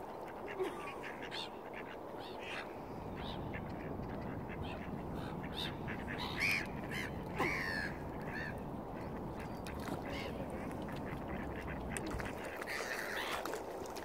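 Waterbirds calling: a run of short calls, bunched most closely from about six to eight and a half seconds in, over a steady background rush.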